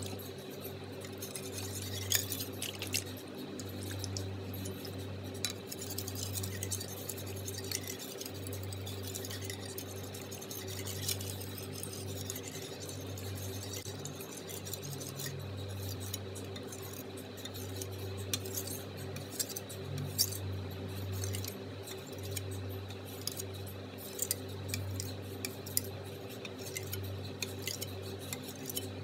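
Steel cleaver blade stroked back and forth on a wet whetstone: repeated gritty scraping strokes of metal on stone, over a steady low hum.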